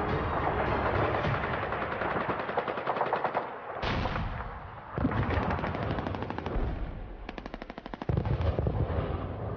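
Battle soundtrack of machine-gun fire in rapid bursts, with heavier blasts breaking in several times.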